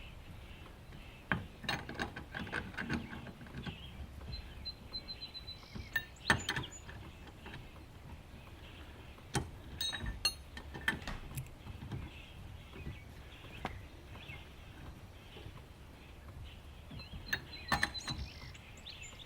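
Lug wrench working on a car wheel's lug nuts, tightening them: scattered metallic clicks and clinks, bunched in a few short runs.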